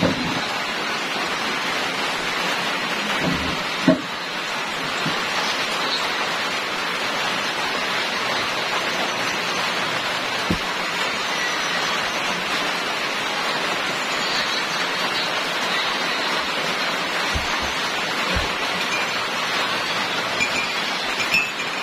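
Steady rain falling, an even hiss, with a few soft knocks, the loudest about four seconds in.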